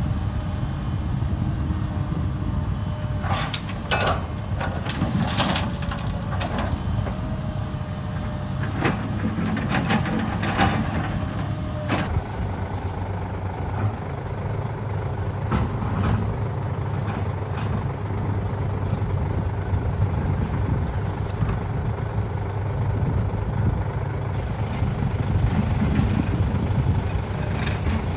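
Heavy construction machinery engine running steadily at a low rumble, with a cluster of sharp knocks and clatters a few seconds in and a thin steady whine that stops about twelve seconds in.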